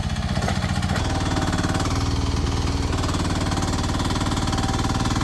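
Small 10-horsepower engine of a 1-ton mini excavator running steadily with a fast, even pulse, its note filling out about a second in while the machine digs.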